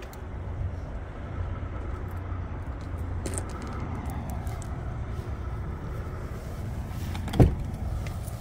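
Low steady rumble of the Kenworth T680's diesel engine idling, with a single loud thump about seven and a half seconds in as the cab door is opened.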